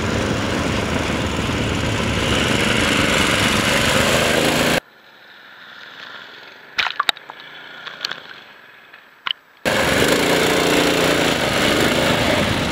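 Mini bike's small engine running hard as it rides through mud, in clips cut together abruptly. In the middle it drops to a quieter stretch with a few sharp ticks, then the engine comes back loud.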